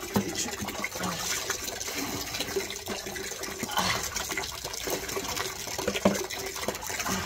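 Water splashing and sloshing as a rottweiler is washed by hand, with scattered small knocks and splashes.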